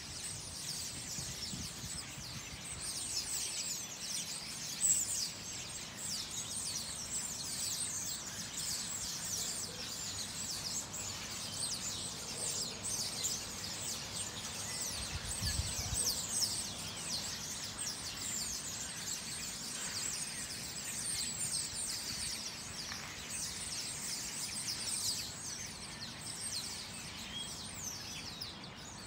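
A flock of sparrows chirping together in a dense, noisy chorus of many overlapping short chirps, thinning slightly near the end.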